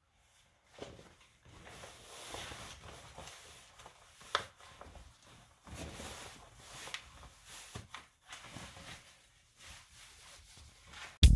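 Denim jeans rustling and rubbing as they are pulled on, with soft shuffling of socked feet on a wooden floor and a few small clicks. A loud electronic music beat cuts in at the very end.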